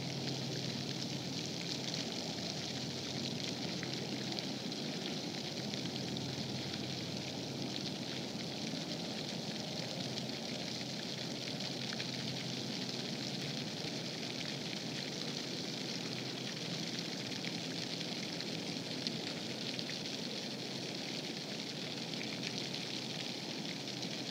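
Steady outdoor background hiss with a faint crackle, unchanging throughout and with no distinct animal or mechanical sound standing out.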